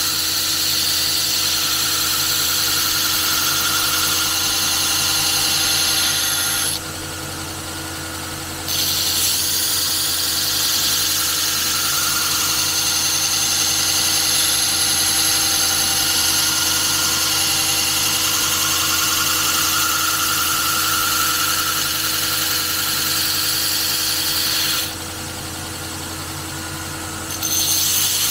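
Power tool running steadily with a high whine over a low hum. The high sound drops away twice for about two seconds, about seven seconds in and near the end, while the hum carries on.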